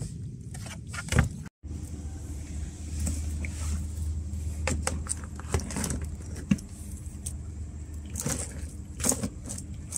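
Mud crabs with tied claws shifted by hand in a plastic tub: scattered knocks and scrapes of shell against shell and against the tub, over a steady low motor hum. The sound drops out briefly about a second and a half in.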